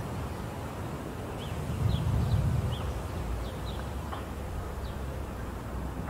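Low rumble of distant thunder, swelling about two seconds in, under a steady outdoor hiss, with a bird's short high chirps repeating about every half second.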